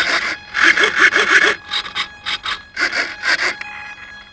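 Servos of an RC Cessna 150 buzzing as the control surfaces are driven back and forth in quick repeated strokes during a pre-flight control check, heard close up through a camera mounted on the plane.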